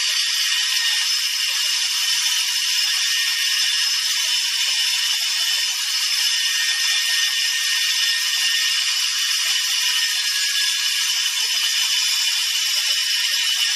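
Grinder running steadily, a high-pitched hissing noise with several steady whining tones, grinding metal off the frame bracket.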